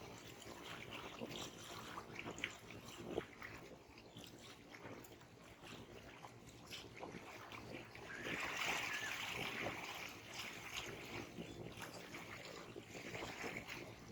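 Small sea waves lapping and splashing at the shore, with a louder wash of water about eight seconds in.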